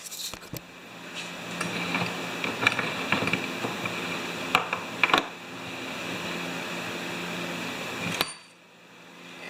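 Light metal clicks and taps of small carburetor parts being handled and fitted, over a steady fan-like hum. The background hum drops away suddenly near the end.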